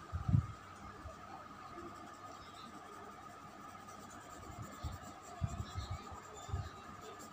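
Soft 6B graphite pencil shading strokes rubbing on drawing paper, with a few low bumps of the hand and pencil against the board. A faint steady hum sits underneath.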